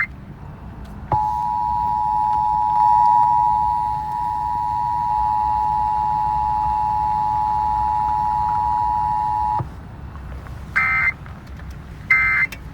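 Emergency Alert System test tones: the two-tone attention signal (853 and 960 Hz together) sounds steadily for about eight and a half seconds, starting about a second in. Then two short buzzy SAME data bursts follow, a second or so apart, the end-of-message code that closes the test.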